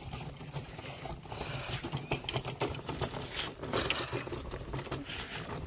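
Dry hay and straw rustling and crackling as it is walked through and carted, a dense run of small clicks.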